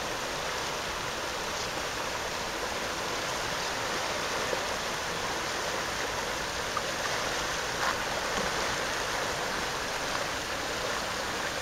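Tidal current rushing steadily through a narrow passage on a flood tide: a constant hiss of fast, churning seawater.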